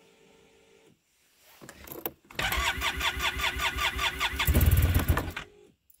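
Arctic Cat Norseman snowmobile's electric starter cranking its engine for about three seconds, a fast even pulsing that swells near the end, then stopping without the engine running. A cold no-start after sitting overnight, which the owner suspects is fuel draining from the cylinder through a slow vacuum leak.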